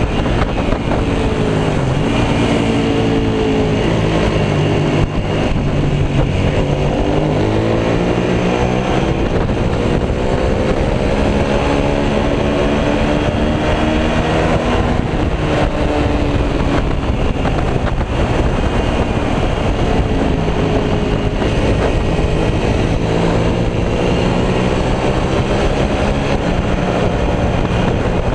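Suzuki SV650's V-twin engine at racing speed, its note climbing under acceleration and dropping away several times as the rider shifts and brakes for corners, over steady wind rush.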